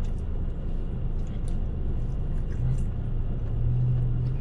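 Steady low rumble of a car cabin, with a low hum coming in about halfway through. Faint small ticks and rustles come from a burger being handled and bitten.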